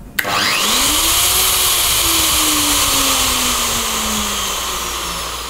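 Makita plunge router switched on with a click, its motor spinning up with a rising whine and then running at high speed. Toward the end the loudness eases off and the whine sinks in pitch, as the motor winds down.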